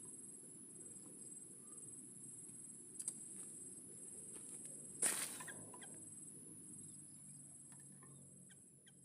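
Faint, steady high-pitched insect drone, like crickets, over a low background hum, with a small click about three seconds in and a sharper, louder click about five seconds in; the whole fades down near the end.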